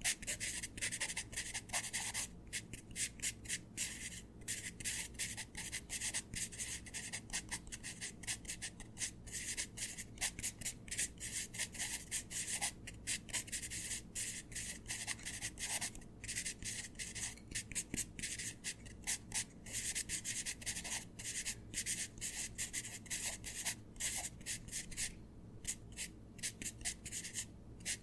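Pencil writing on paper: quick, irregular scratchy strokes one after another, with brief pauses between runs of strokes.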